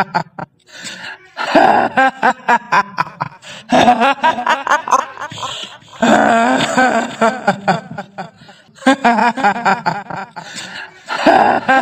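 A woman's shrill, cackling 'hihihi' laugh, the kuntilanak ghost laugh of Indonesian horror, used as a horror sound effect. It comes in about five bursts of rapid, pulsing laughter with short breaks between them.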